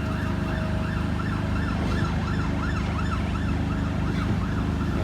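An emergency vehicle siren on the road, going in a fast rising-and-falling yelp of about three sweeps a second, over a steady low engine hum.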